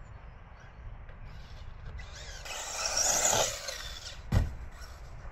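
1/8-scale electric RC buggy passing close by, its motor and drivetrain whining, the pitch rising and falling with the throttle. About four seconds in it lands from a jump with a single sharp thud.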